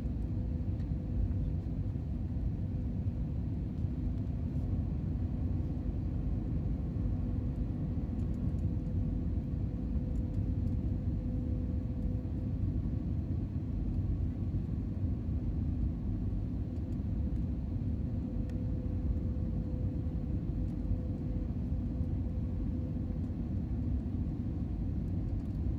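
Steady low rumble of cabin noise inside an Airbus A320neo (A320-251N) descending on approach: its CFM LEAP-1A turbofan engines and the airflow over the fuselage, heard from a seat just behind the wing. A faint steady hum sits over the rumble throughout.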